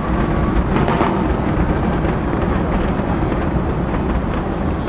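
Fireworks bursting in rapid succession, heard as a continuous low rumble of overlapping bangs with no single burst standing out.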